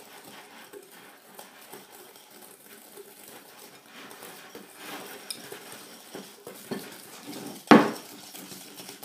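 Wire whisk stirring creamed butter and icing sugar in a glass bowl, scraping through the mixture with soft taps of the wires against the glass. A single sharp knock a little before the end.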